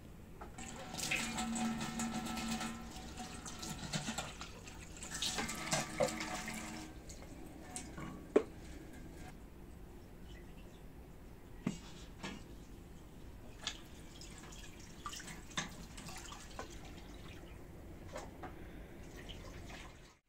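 Tap water running into a steel sink as clay dishes are washed by hand, loudest for the first several seconds, then quieter rinsing with occasional sharp knocks of clay and steel dishes against the sink.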